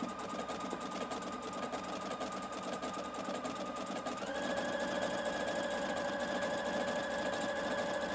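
Domestic sewing machine running steadily as it stitches, its motor tone stepping up in pitch and getting a little louder about four seconds in.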